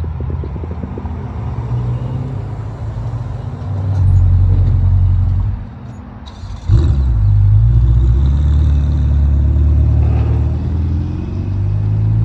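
Ferrari 488 Pista's twin-turbo V8 engine running at low revs. It gets louder about four seconds in, drops away briefly, then comes back sharply about seven seconds in and stays loud, its pitch rising slowly near the end.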